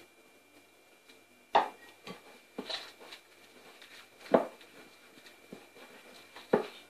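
Hands working flour and water into a dough in a glass bowl, soft handling with a few sharp knocks of hand and bowl against the glass and counter.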